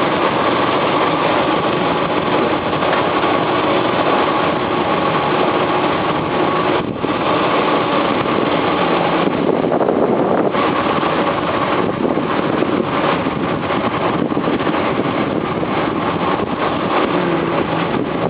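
Tour boat's engine running steadily.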